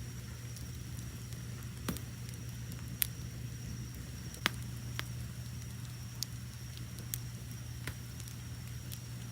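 Wood fire burning with a steady low rush and sharp crackles and pops about once a second, the loudest around three and four and a half seconds in. Behind it, autumn crickets chirp in a steady high-pitched tone.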